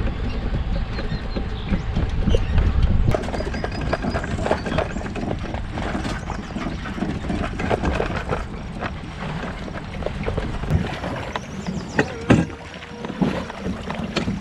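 Low rumble and wind noise of an inflatable raft riding on its trailer. From about three seconds in come scattered knocks and rattles of the raft's metal frame and gear as it is launched at a boat ramp, with one louder knock near the end.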